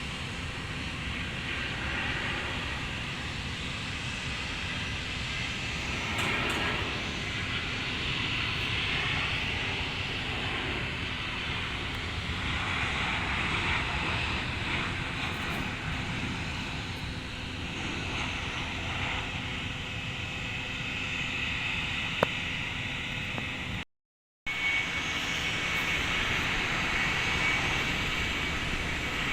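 Jet airliner engines on approach or landing, a steady noisy rush that swells and eases, broken by a brief total dropout about two-thirds of the way through.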